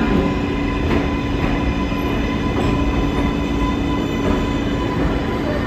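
R188 subway train pulling into the station and slowing alongside the platform: a steady squeal from the wheels over a low rumble.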